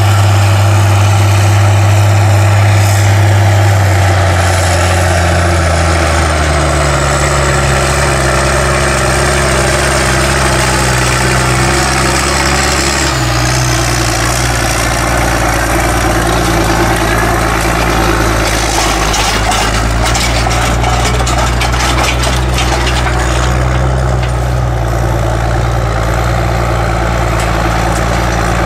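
White 4-270 Field Boss articulated four-wheel-drive tractor's diesel engine running steadily under load while pulling a tillage tool. In the second half it is joined by clattering from the towed tillage tool's disc gangs.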